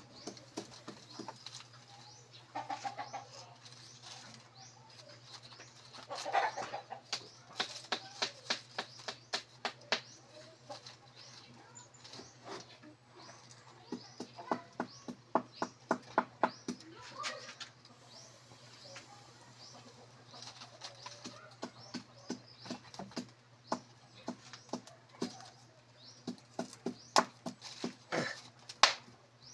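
Quick runs of sharp clicks and crackles while kindling is laid and lit on a wood cooking fire, with a few short animal calls.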